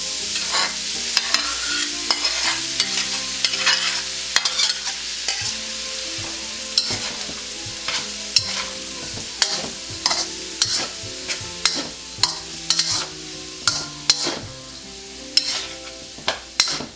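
Day-old cooked rice sizzling in a hot oiled steel wok as it is stir-fried with shrimp and peas, a metal spatula scraping and clacking against the wok many times. The sizzle eases a little as the rice takes up the heat, while the spatula strikes go on.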